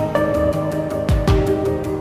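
Background music: held synth notes over a steady beat with a low thump about once a second.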